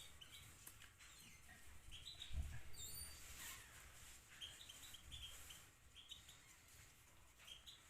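Faint chirping of small caged songbirds such as goldfinches, many short high chirps with one whistled call about three seconds in. A dull low thump sounds about two and a half seconds in.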